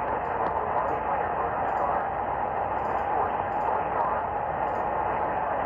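Steady hiss of radio static from a weak received signal, muffled and cut off above the low treble.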